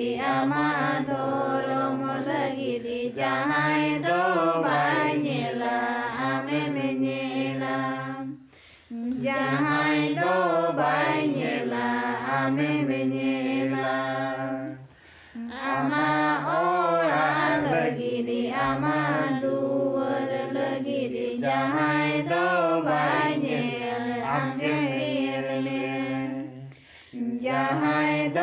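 A mixed group of men and women singing a song together in unison, led by a woman's voice amplified through a microphone. It goes in long phrases of held notes, with short breaks about 8, 15 and 27 seconds in.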